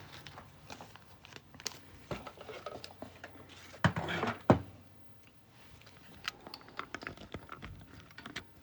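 Parts of a Bambu Lab AMS Lite stand being handled and fitted together by hand: scattered light clicks and knocks, with two louder knocks about four seconds in.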